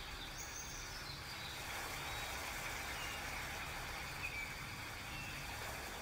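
Steady background noise: a low hum with a hiss over it, and a few faint, brief high chirps.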